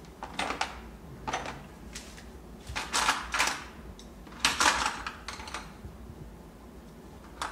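Small tools and paper being handled on a tabletop: a few irregular short rustles and clatters, the loudest about three seconds in and again about four and a half seconds in.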